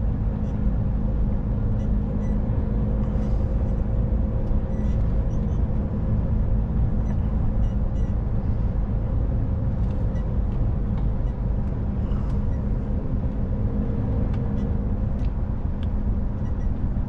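Truck's diesel engine running steadily while driving, heard from inside the cab with road noise: an even, low hum that does not change.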